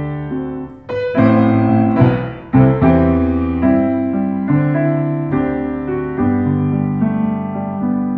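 Piano music: notes and chords struck one after another and left to ring out.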